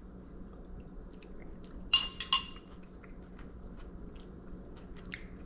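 A metal spoon clinks against a ceramic soup bowl in a quick cluster about two seconds in, then faint chewing of a mouthful of soup, over a low steady room hum.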